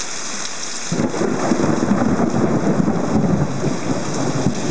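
Heavy rain mixed with hail pouring down; about a second in, a long, crackling rumble of thunder begins and goes on over the rain.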